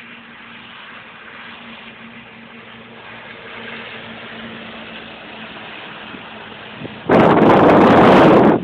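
Blowing wind in a snowstorm, a steady hiss over a faint low hum, then about seven seconds in a strong gust hits the microphone with a loud buffeting rush.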